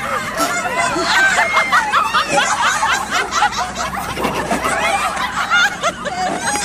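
Several women laughing and giggling over one another, with high-pitched squealing laughs.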